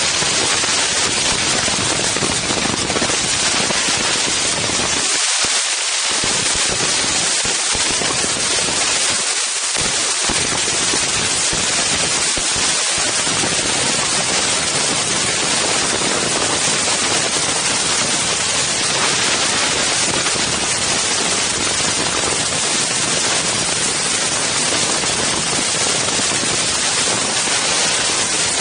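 Strong wind buffeting the microphones of an Insta360 One X camera: a loud, steady rush of noise, its low rumble dropping out briefly a few times in the first half.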